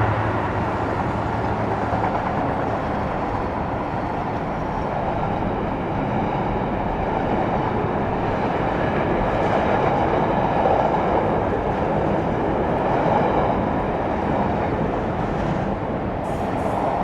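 A freight train's wagons rolling past on the rails with a steady rumble, and a few light clicks near the end.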